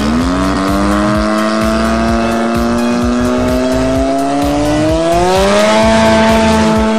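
Drag cars running on the start line, led by a Mk1 VW Golf's 13B turbo rotary engine swap, whose pitch climbs slowly and then jumps higher about five seconds in. Background music with a low pulsing beat plays underneath.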